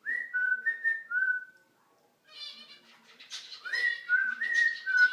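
Cockatiel whistling a short four-note phrase, stepping between a higher and a lower note, then a brief burst of chatter, then the same whistled phrase again.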